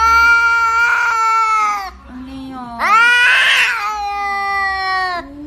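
Tabby cat yowling loudly in two long, drawn-out calls. The second call has a raspy stretch in the middle, and a short, quieter call falls between the two.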